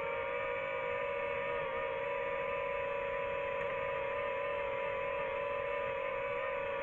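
DJI FPV drone's motors and propellers hovering, a steady whining hum whose pitch wavers slightly as the motors adjust.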